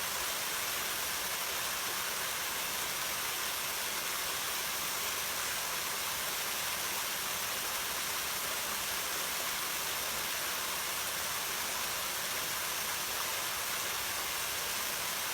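Waterfall rushing steadily: an even, unbroken hiss of falling water, strongest in the high range.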